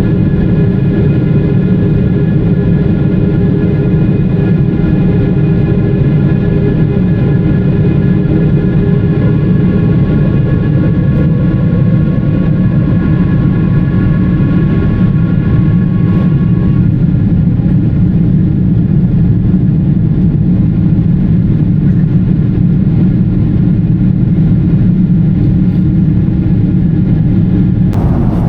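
Cabin noise of a Boeing 777-300ER in the climb after takeoff: a steady rush of airflow and GE90-115B jet engines, with a hum of several steady engine tones, some of which fade out a little past halfway.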